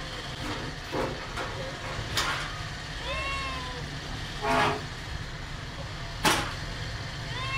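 A domestic cat giving a few short, high meows over a steady low hum, with three brief noisy bursts between them.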